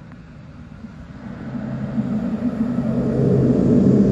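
Airbus A350-900's Rolls-Royce Trent XWB jet engines at taxi power, a steady low drone that swells loudly as the airliner rolls close past.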